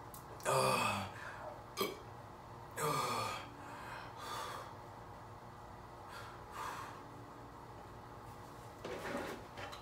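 A man gasping and sighing for breath between gulps of thick eggnog while chugging it, with loud heavy breaths every couple of seconds. There is a sharp click about two seconds in.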